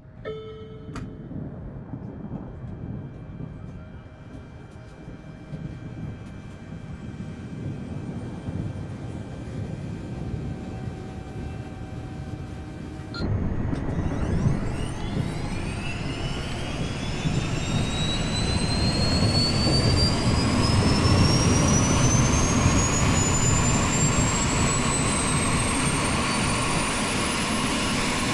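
Airbus helicopter's turbine engine running up: a steady engine sound that turns louder about halfway through, then a high whine that climbs steadily in pitch over a broad rumble, as the turbine spools up.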